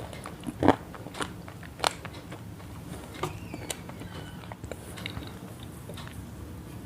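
Irregular crisp crunches and clicks, the loudest in the first four seconds, with a few faint short high squeaks in the middle.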